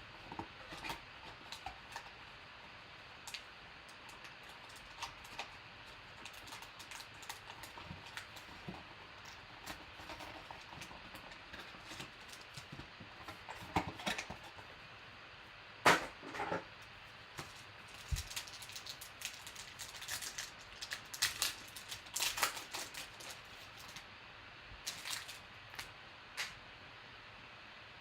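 Sharp clicks, snaps and crackles of trading card packs being torn open and cards handled. They come irregularly, with the loudest single snap about halfway through and a run of rapid snaps just after it.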